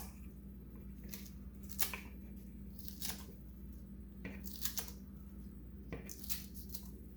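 Sharp scissors snipping through folded loquat leaves, several crisp cuts at irregular intervals, over a steady low hum.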